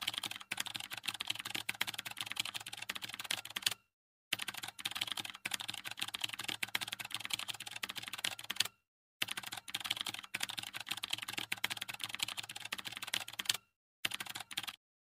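Keyboard typing sound effect: rapid, dense clicking in three runs of about four seconds each and a short final run, separated by brief silent breaks.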